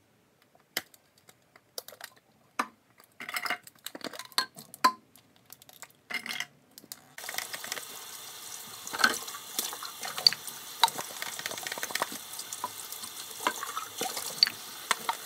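Plastic baby bottles and their parts clicking and knocking as they are handled at a kitchen sink, then about seven seconds in the tap comes on and water runs steadily into the sink, with the clinks and knocks of the bottles being rinsed.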